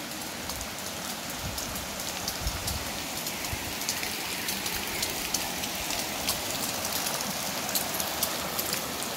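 A shallow rocky creek running over stones: a steady rushing hiss with many small sharp ticks on top, more of them in the second half. A few soft low thumps come in the first three seconds.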